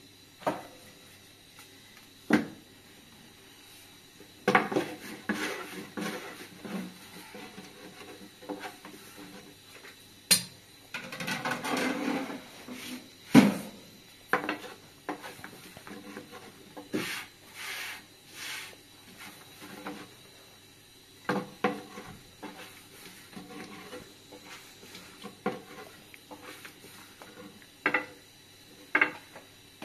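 Scattered knocks, clinks and scrapes of pots and utensils being handled, with a longer scraping stretch about eleven seconds in.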